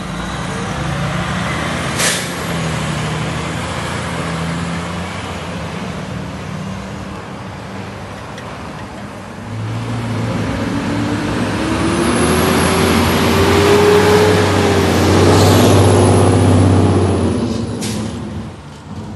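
Fire trucks' engines running, with a short air-brake hiss about two seconds in; from about halfway a fire ladder truck's engine revs up, rising in pitch and growing louder as it pulls past, then drops away near the end with another short air-brake hiss.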